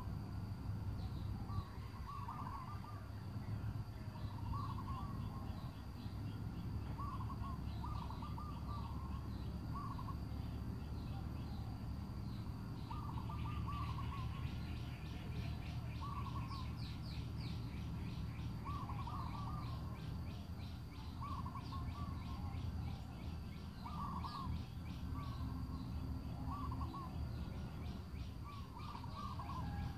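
Birds calling outdoors: short calls repeating every second or two, with a fast, high, ticking trill through the middle stretch, over a steady low rumble.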